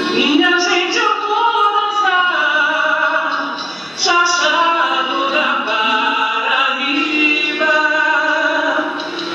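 A recorded song with singing over instrumental backing, playing steadily as dance music.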